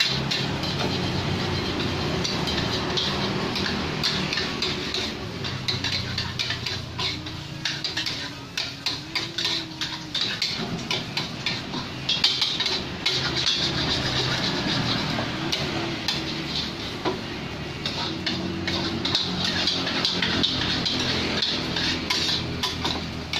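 Metal spatulas clanking and scraping against steel woks as fried rice and noodles are stir-fried: rapid, irregular strikes, busiest in the middle, over a steady frying hiss.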